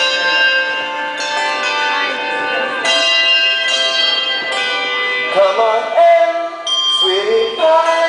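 Hand bells ringing out a melody, each struck note ringing on and overlapping the next. Wavering voices rise over the bells in the second half.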